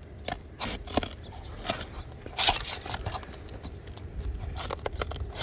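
Asphalt roofing shingle being pried loose from its adhesive sealant strip: irregular sticky crackling and tearing clicks, with one louder rip about two and a half seconds in.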